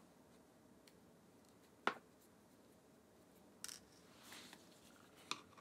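Mostly quiet, with three small sharp clicks and a soft rustle as tiny camera screws and a precision screwdriver are handled on a desk. The loudest click is about two seconds in and the other two come in the second half.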